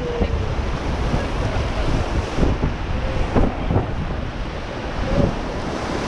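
Rushing whitewater of a fast, rocky river rapid churning around an inflatable raft, with wind buffeting the microphone. The sound is a steady, dense roar of water.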